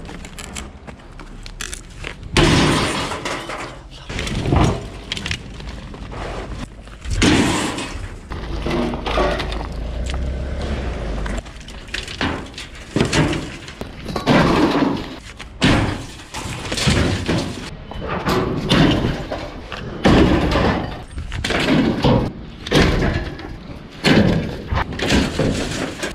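Rusty scrap bicycles and metal junk thrown into a steel skip full of other bikes. Loud crashes and metal clattering come about every second or two.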